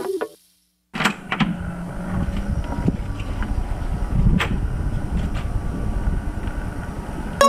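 The intro music ends and, after a second of silence, a steady low rumbling rush of wind on the microphone sets in, with a few faint clicks and knocks.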